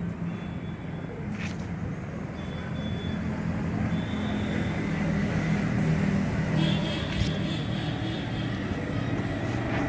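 Steady low outdoor background rumble, with a few faint, short high-pitched chirps and occasional light clicks.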